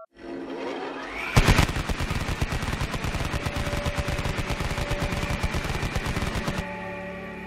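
Machine-gun fire sound effect: a rapid, even burst of shots, about eight to ten a second. It starts sharply about a second and a half in, after a short rising sound, and cuts off near the end, leaving faint ambient music.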